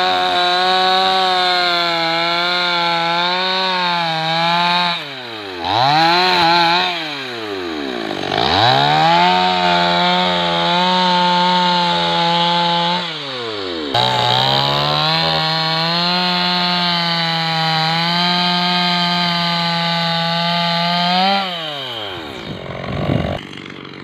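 Petrol two-stroke chainsaw running at high revs while cutting branches. The engine pitch falls and climbs back a few times as the throttle is let off and squeezed again, then winds down and stops near the end.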